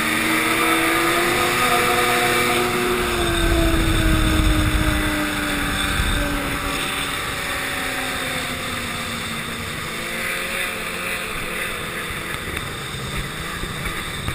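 Snowmobile engine running, its pitch rising briefly and then slowly falling as it eases off, with wind rumbling on the microphone about four seconds in where it is loudest.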